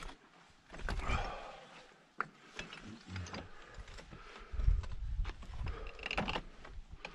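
Scrambling over broken, blocky rock: scattered clicks, scrapes and clatters of hands, boots and gear on the rock, with low rumbles on the microphone about halfway through.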